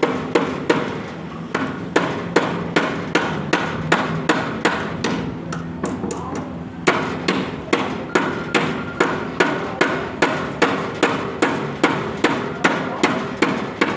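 Hammer nailing wooden concrete formwork boards: a steady run of strikes about three a second, with a short pause a little before the middle.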